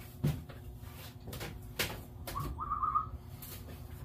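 Tools being handled and rummaged through, with a few scattered knocks and clicks, and a short warbling whistle about two and a half seconds in.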